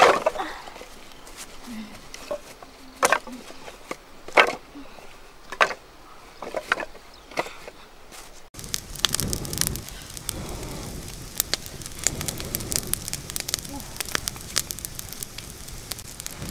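Dry wooden sticks knocking together as they are laid into a pile, a few separate clacks. About halfway through, a wood fire crackling fast and steadily as it burns.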